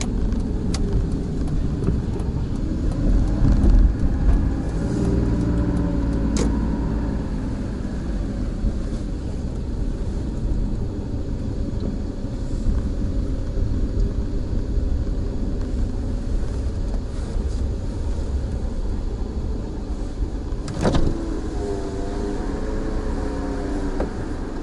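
Car engine and tyre noise heard inside the cabin while driving, the engine note rising briefly a few seconds in. Two sharp clicks cut through it, the louder one near the end.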